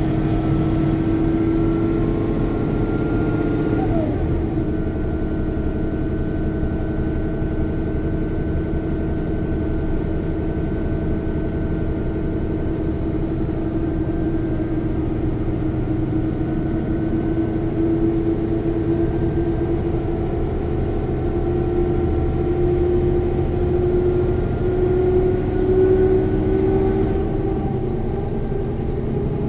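A 1995 Mercedes-Benz O 405 N1 city bus under way, heard from inside: the six-cylinder diesel engine runs loud and steady. A whine from the rear axle drive comes through, while the quiet gearbox is covered by the engine. The whine breaks up about four seconds in, and in the second half it rises slowly in pitch as the bus gathers speed.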